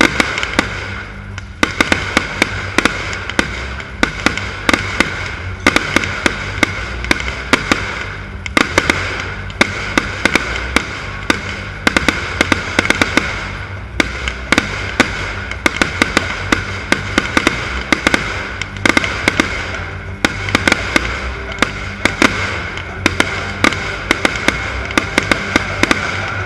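Fireworks display: a dense, continuous barrage of sharp bangs and crackles, several a second, broken by a few short lulls.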